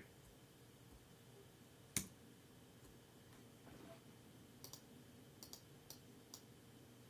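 Computer mouse clicks: one sharper click about two seconds in, then a handful of faint clicks, some in quick pairs, otherwise near silence.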